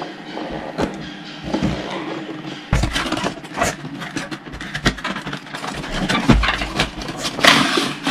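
Cardboard packaging and a clear plastic display case being handled: irregular rustling, scraping and clicking as the case is slid out of its box, with a few dull knocks and the loudest scrape near the end.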